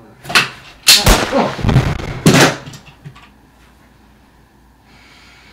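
A rapid series of loud bangs and thuds, about four within two and a half seconds, then quiet.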